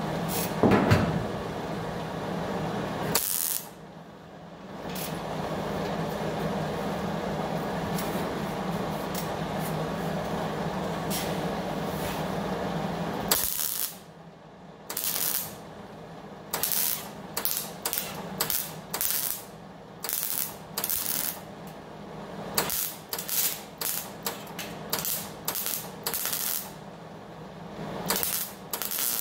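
MIG welder tack-welding a cut seam in sheet-steel body panel: from about halfway on, a string of more than a dozen short bursts, roughly one every second or less. Before that, a long steady hissing run with a low hum, broken by a brief pause a few seconds in.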